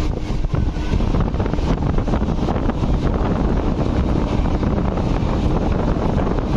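Wind rushing and buffeting over the microphone at the open window of a fast-running passenger train, over the steady low rumble of the coach's wheels on the track at about 130 km/h.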